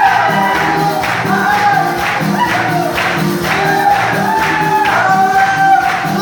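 Upbeat live praise-band music: a steady dance beat of about two strikes a second under a melody line of long held notes.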